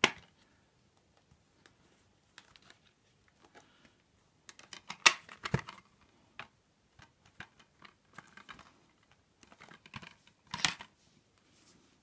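Plastic Blu-ray case being handled and opened: scattered light clicks and clacks, with the loudest clatter about five seconds in and another cluster around ten and a half seconds.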